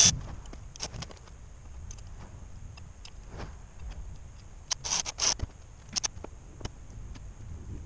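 Scattered sharp clicks and taps of small parts and hand tools being handled on a workbench, with a quick run of three clicks about five seconds in.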